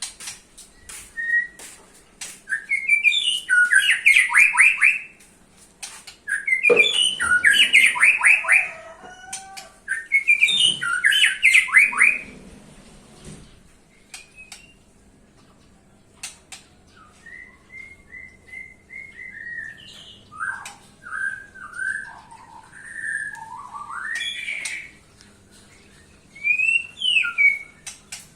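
White-rumped shama singing: three loud phrases of rapid, rattling repeated notes in the first half, then a run of softer, varied whistled notes and sharp calls, with scattered clicks between phrases.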